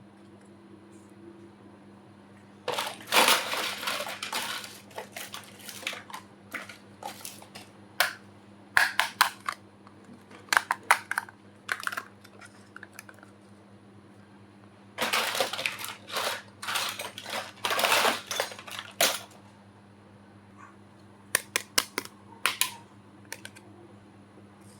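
Small plastic pieces of a toy kitchen set being handled and unpacked. The sound is bursts of light clicking, clattering and plastic rustling with short pauses between them.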